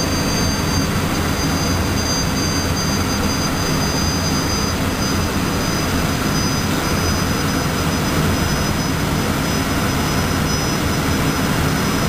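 Sabreliner's #2 jet engine running steadily, heard inside the cockpit: a constant low roar with a steady high-pitched whine on top.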